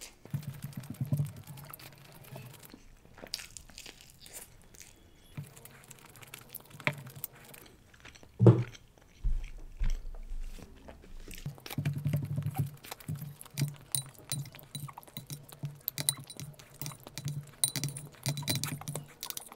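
Close-miked chewing and mouth sounds of someone eating rice biryani by hand, with small clicks of fingers picking rice off the plate. Near the end a spoon clinks in a glass bowl.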